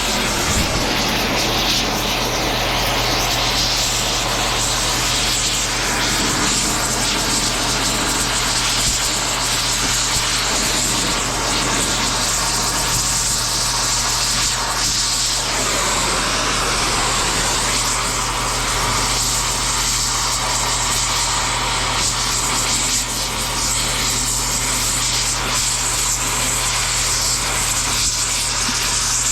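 Torch flame burning steadily with a dense hiss over a low hum, melting insulated cable off a chunk of scrap metal.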